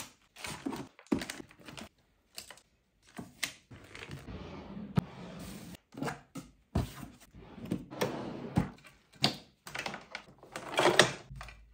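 Bottles, tubes and other hair-care items being handled and set down in a drawer: a string of short knocks and clatters with some rustling of packaging, ending in louder knocks as a hair dryer and its cord go in.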